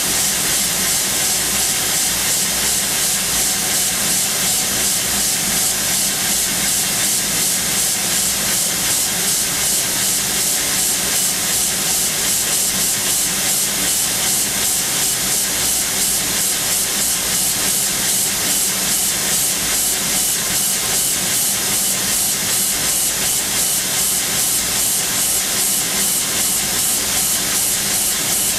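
Machining-centre spindle running at 13,000 rpm while a 1 mm carbide long drill peck-drills hardened tool steel, under a loud, steady hiss. A faint steady hum sits beneath the hiss, and the level pulses slightly and regularly with the pecking.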